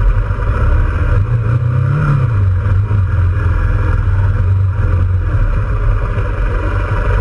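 A vehicle engine running at low speed on a gravel road, with steady tyre and wind noise. Its pitch rises briefly about two seconds in and then drops back.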